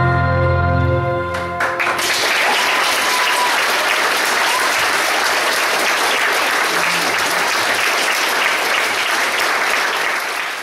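A held final chord of the music cuts off about a second and a half in, and the audience breaks into steady applause that fades out at the very end.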